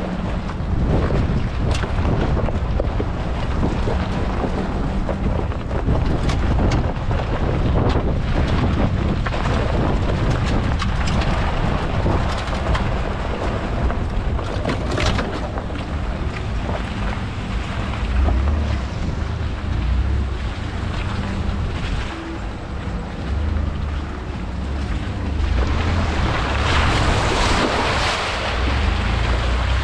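A vehicle driving, its engine running low and steady under heavy wind noise on the microphone.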